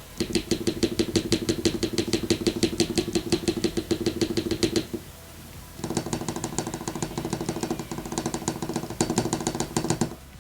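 Durock V2 stabilizers in an aluminium keyboard plate pressed over and over, giving fast, even clicking several times a second with a steady low tone under it. The clicking comes in two runs, with a pause of about a second in the middle.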